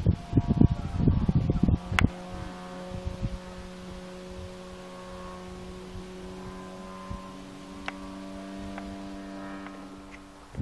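Wind buffeting the microphone for about two seconds, ending with a click, then a steady low hum made of several held tones that shift slightly in pitch midway.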